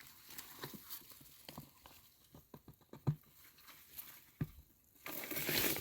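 Sawdust poured from a bucket around the base of a tree: quiet scattered taps and patter, then a steady soft hiss from about five seconds in.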